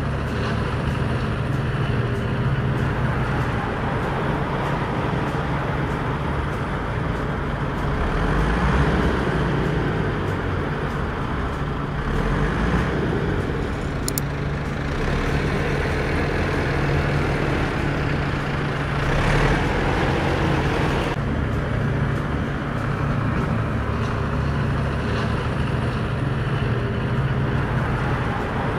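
Engine of a large diesel vehicle running steadily, with a deep hum that swells slightly now and then.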